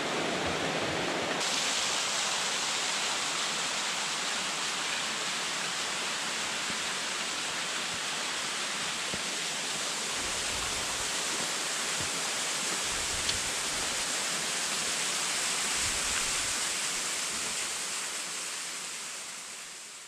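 Rushing water of a rocky mountain stream, a steady hiss that fades out near the end.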